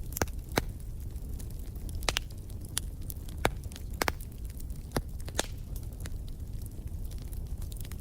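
Fireplace fire crackling, with irregular sharp pops and snaps over a steady low rumble of burning.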